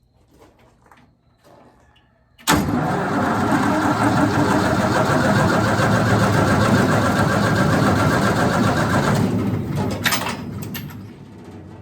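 Wood chipper's gasoline engine cranking over on its electric starter for about seven seconds without catching, after new spark plugs. It starts suddenly and winds down near the end, with a sharp click as it stops.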